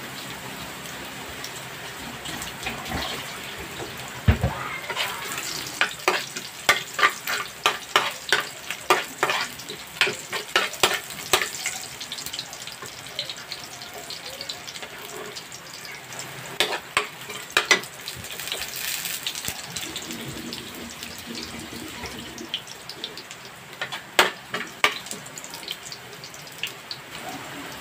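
Sliced onion and garlic sizzling in oil as they are sautéed in a frying pan, with a metal ladle clacking and scraping against the pan in quick runs of strokes as it stirs. A dull knock about four seconds in.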